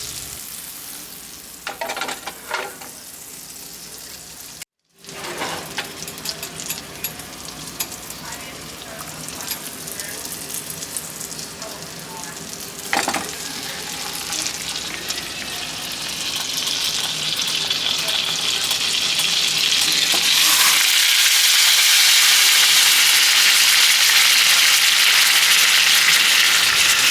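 Food frying in a hot pan: a steady sizzle with scattered clicks, cut off briefly about five seconds in, growing louder and fuller over the last ten seconds.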